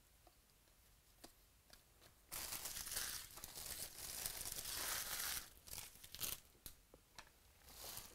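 A few light clicks of cards being handled, then a foil trading-card pack wrapper being torn open and crinkled, about three seconds of tearing and rustling starting a little over two seconds in, followed by a few shorter crinkles.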